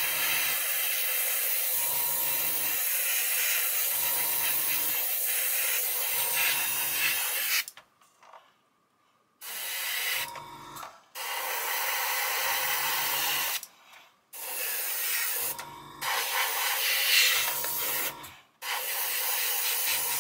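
Airbrush spraying paint: a steady hiss of air that stops and restarts five times, with the longest break about eight seconds in.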